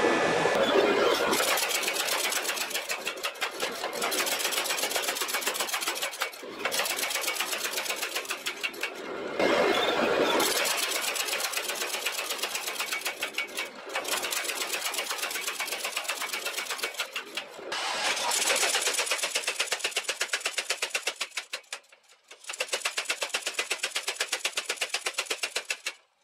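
Power hammer striking a red-hot steel blade blank held in tongs, rapid blows several a second, in runs broken by short pauses as the blade is moved.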